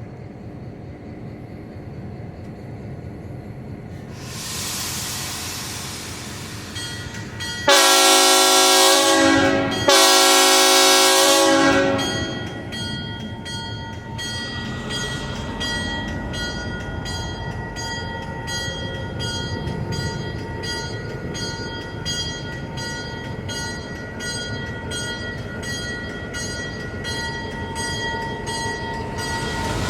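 Brief hiss of air, then a train horn sounding two loud blasts, the signal that the train is about to move off. After that the train rolls along with a steady rumble and regular clicking of the wheels over the rail joints.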